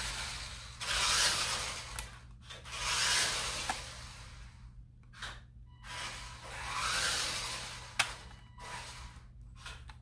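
Battery-powered RC toy truck's electric drive motor and gearbox whirring in bursts of one to two seconds as it drives back and forth on a concrete floor, with a few sharp clicks, the loudest about eight seconds in.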